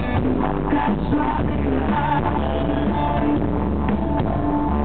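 Live band playing amplified music on guitars and drums, loud and continuous.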